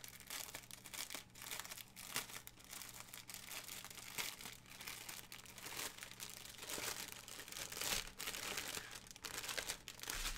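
Clear plastic packaging crinkling and crackling irregularly as it is pulled and worked open by hand, unwrapping a bundle of diamond-painting drill bags, with a denser stretch of crackling about seven to eight seconds in.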